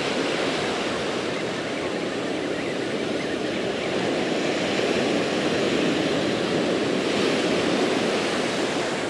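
Ocean surf breaking and washing up the beach in a steady rushing wash, swelling a little in the middle.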